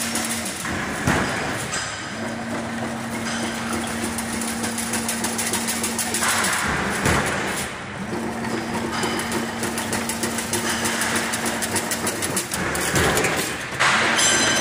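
Double-wire chain link fence machine running: fast, continuous clattering of the weaving mechanism over a steady hum that cuts out and comes back three times.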